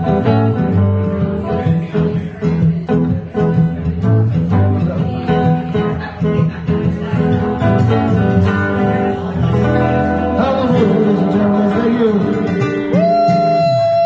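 Blues played live on an electric guitar and an acoustic guitar together: strummed chords and picked lines, then a wavering bent phrase, and near the end a note slid up into and held long.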